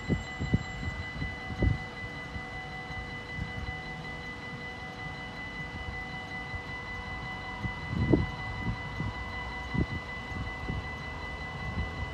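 Dutch level-crossing warning bell ringing steadily while the barriers are down, signalling that a train is approaching. Gusts of wind buffet the microphone now and then, the strongest about eight seconds in.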